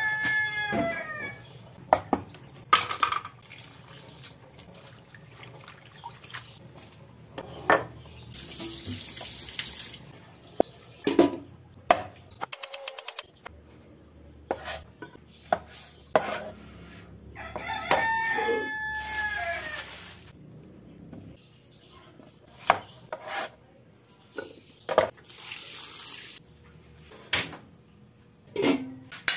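Kitchen prep clatter: a cleaver and hands knocking on a plastic cutting board and an aluminium pot and dishes clanking against a steel sink, with a few short spells of running water. A rooster crows twice, once at the start and again about 18 seconds in.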